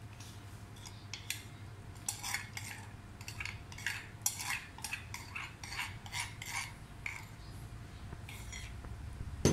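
Metal utensils clinking and scraping irregularly against a steel wok and a bowl as a curry mixture is poured and scraped into the wok, over a steady low hum, with one louder knock at the very end.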